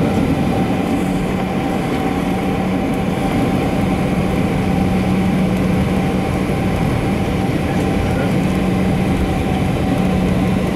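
Cabin noise of a Boeing 737-800 taxiing: its CFM56 turbofans running at low taxi thrust, heard as a steady drone with a low hum and a higher held tone over a rumble.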